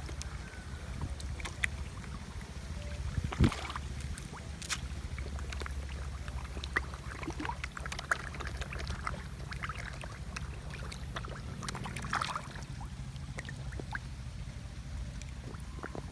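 Water sloshing and splashing, with scattered small clicks over a steady low hum.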